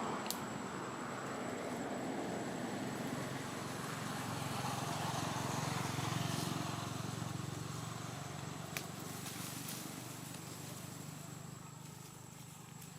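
Low engine rumble of a passing motor vehicle, swelling over the first several seconds and then fading, over a steady hiss; two sharp clicks, one just after the start and one about nine seconds in.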